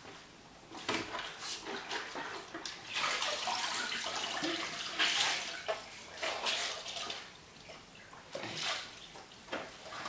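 A string mop being rinsed in a bucket of water: irregular sloshing and splashing, loudest through the middle and easing off near the end.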